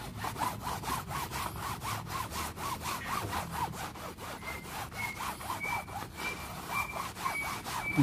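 Scrubber worked rapidly back and forth over a soapy, wet plastic bird-cage tray, about five strokes a second, washing it clean.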